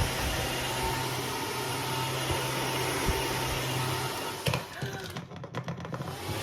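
Cordless wet-dry vacuum mop running in eco mode: a steady motor hum with rushing air. About four and a half seconds in, the sound breaks into a run of rapid clicks and dips for over a second.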